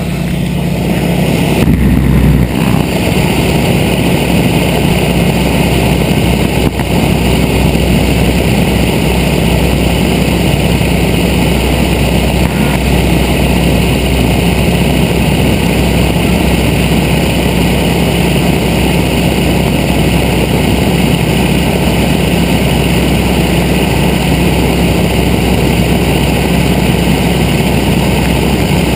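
Steady drone of a light high-wing airplane's engine and propeller in cruise, with rushing air over it. The pitch and level stay unchanged throughout.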